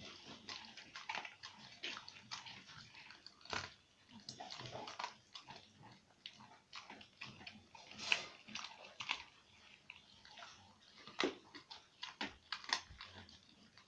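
Dog chewing and gnawing a piece of food held between its paws, with irregular wet smacking, licking and sharp gnawing clicks.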